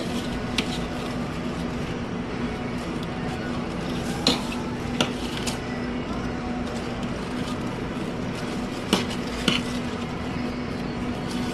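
Metal serving utensils clinking and scraping against steel food pans on a burrito assembly line as fillings are scooped, with a handful of sharp clinks over a steady low hum.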